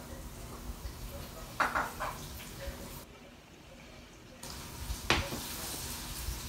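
A few gulps of water drunk from a glass, then a single sharp clunk about five seconds in as the glass is set down on the table.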